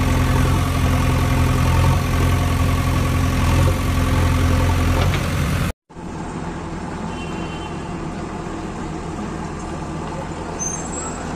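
Steady, deep engine idling sound, like a tractor's diesel, that cuts off abruptly a little past halfway. After a brief silence a quieter, rougher engine-like hum follows.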